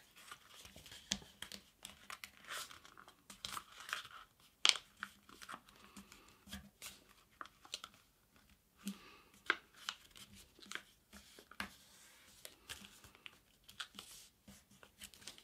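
A sheet of letter-size paper being folded by hand: quiet, irregular crinkles and rustles as the paper is moved and its creases are pressed flat.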